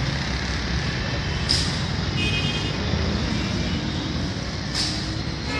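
Street traffic noise with vehicle engines running, and two short hisses, about a second and a half in and near the end.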